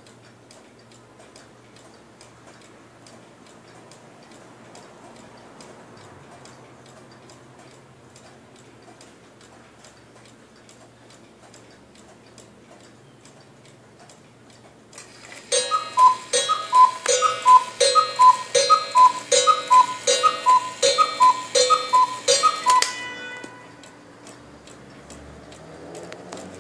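Wall-hung cuckoo clock ticking steadily, then, about halfway through, striking twelve: a long run of two-note cuckoo calls, high then low, with mechanism clicks, lasting about eight seconds before the ticking carries on alone.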